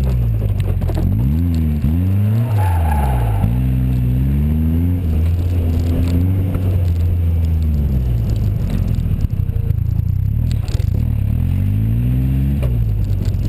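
Open Seven-style sports car's engine, heard close through its side exhaust, revving up and dropping back again and again as the car is driven hard through a coned autocross course; the pitch holds steady for a few seconds mid-way before climbing once more near the end. Wind and road noise run underneath.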